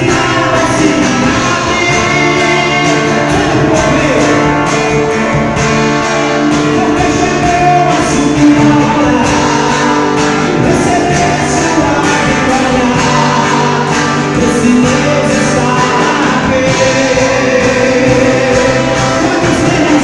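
Live gospel song: singing with backing voices over amplified band accompaniment, loud and steady throughout.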